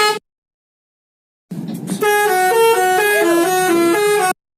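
Telolet bus horn, a multi-tone horn playing a quick tune of stepped notes: a short snatch right at the start, then a longer run from about two seconds in that cuts off abruptly near the end.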